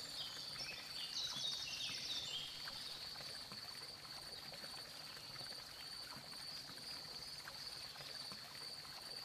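Outdoor nature ambience: a steady high insect trill, with a short run of falling bird chirps about a second in.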